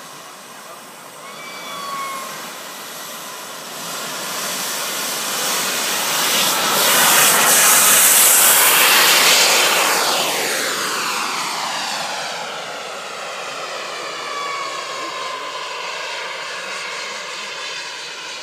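Gas turbine of a Boomerang radio-controlled model jet at takeoff power: a steady hissing whine that grows as the jet rolls toward and past, loudest about eight seconds in. It then drops in pitch and fades as the jet climbs away.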